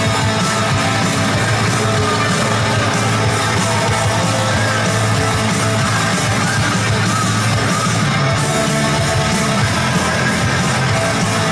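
Loud punk rock music with distorted electric guitars and singing.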